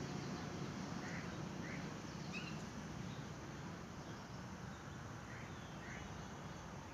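Birds giving short chirps over steady outdoor background noise: two about a second in, one at about two and a half seconds, and two more near the end.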